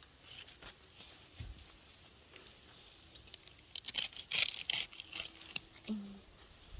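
Crisp rustling and crackling of leafy garden plants being handled, with scattered clicks, loudest from about four to five and a half seconds in.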